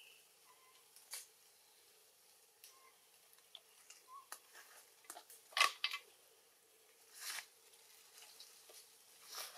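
Scattered soft rustles and clicks from macaques shifting about in grass and dry leaf litter, the loudest cluster just past halfway.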